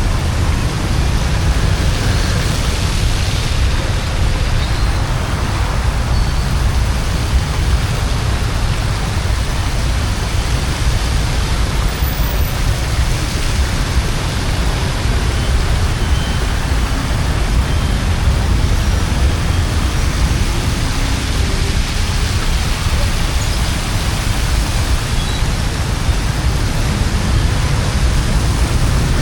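Steady, unbroken rush of water, with a constant low rumble underneath.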